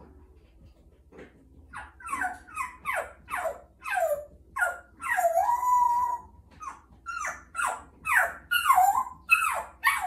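African grey parrot imitating a dog: a quick string of short, falling yelps and barks, with one longer drawn-out whine in the middle.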